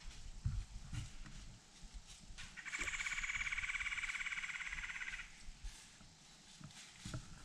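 An animal call: a rapid, buzzy, pulsing trill lasting about three seconds, starting a couple of seconds in. Footfalls rustle in dry leaves before it and again near the end.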